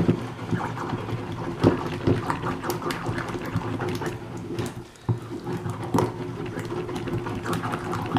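A pestle stirring and pressing a thick paste of tahini, garlic and salt in a mortar. It makes wet, sticky squelching with irregular knocks of the pestle against the bowl, over a steady low hum.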